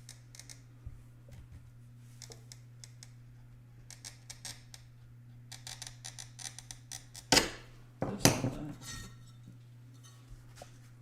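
Light clicks and taps of glass and hand tools being handled, then two loud cracks about seven and eight seconds in, the second with a short ringing tail: sheet glass snapping as running pliers start a run along a score line. A steady low hum lies underneath.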